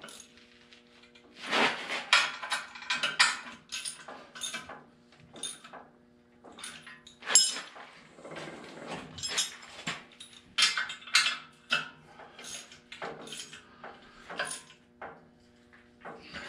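Irregular metal clanks and clinks of a tractor's steel wheel rim being handled and worked on its rear axle hub, over a steady low hum.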